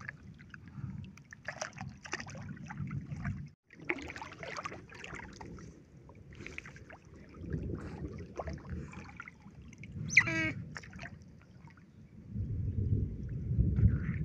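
Water sloshing and splashing as otters swim and scramble in shallow muddy water beside a wading person, with one short high-pitched otter call about ten seconds in.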